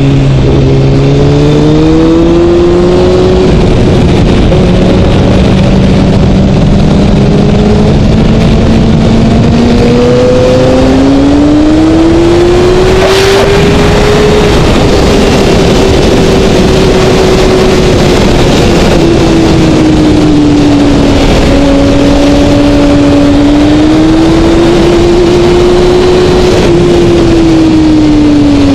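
A 2012 Kawasaki ZX-6R's inline-four engine running hard on track, its pitch climbing slowly for about thirteen seconds, then easing and rising again with the corners and falling near the end. Loud wind rush on the onboard microphone runs under it, with one short sharp sound about thirteen seconds in.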